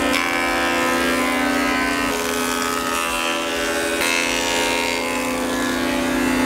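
Electric woodworking machines running with a steady drone: a thickness planer planing a board, then a jointer, with a dust extractor hooked to them.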